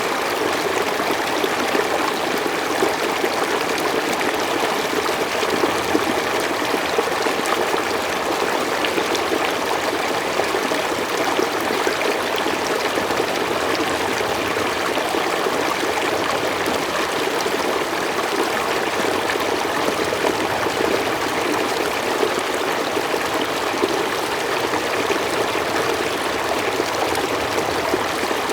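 Water running steadily in a stream, an even rushing and trickling that holds level throughout.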